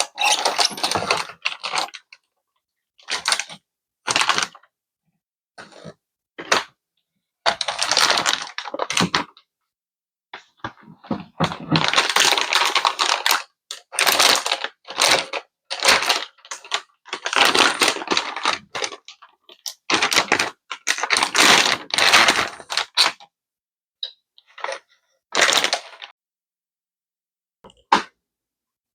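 Hands handling PC parts and packaging: irregular bursts of rustling, clicking and tapping, each up to about two seconds long, with silent gaps between them.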